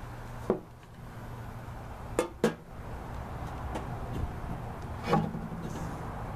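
A glass pane being set down over a metal tray: a few light knocks and clinks, the sharpest a pair of quick clicks about two seconds in and a duller knock near the end.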